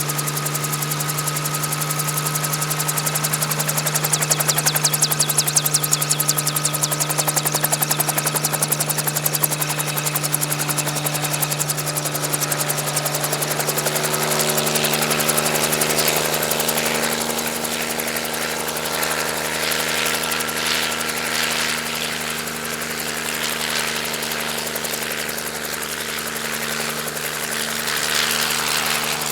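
Helicopter running steadily, with a constant engine whine and a rapid blade chop. About halfway through, the pitch of its tones shifts and the sound grows rougher.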